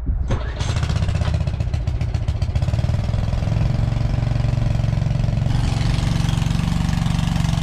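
Small engine on a transfer pump starting and then running steadily, driving the pump that moves 28% liquid nitrogen fertilizer from the storage tank into the sprayer's front tank. It catches just after the start and its sound settles slightly about five seconds in.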